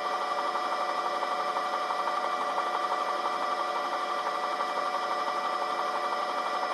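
Sheriff's helicopter in flight heard over its onboard audio: a steady mechanical drone with several held whining tones, unchanging throughout.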